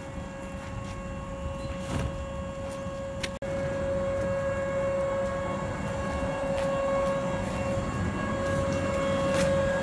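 Steady, even-pitched electrical hum from a stationary 455-series express electric train's onboard equipment, idling at the platform. It grows slowly louder and cuts out for an instant about three and a half seconds in.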